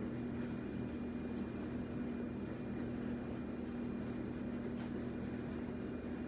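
A steady low mechanical or electrical hum with a constant pitch, like a fan or appliance running.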